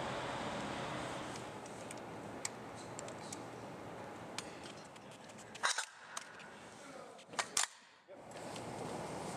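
Sharp metallic clicks and clacks from a GAU-21 .50 caliber machine gun's springs, bolt and top-cover parts being handled during a function check. There are light scattered ticks, then two bunches of louder clicks past the middle, over a steady background hiss.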